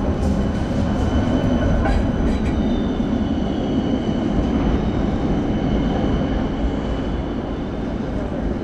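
Rail vehicle running on its track: a steady rumble with a thin high whine that sinks slightly in pitch in the middle.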